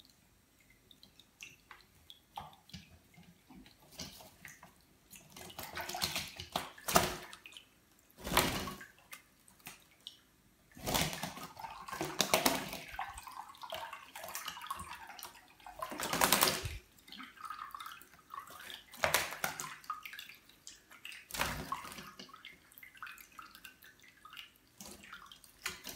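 Conures bathing in shallow water in a sink, splashing in short noisy bursts as they flap their wings in the water, about seven times, with faint drips and small water sounds in between.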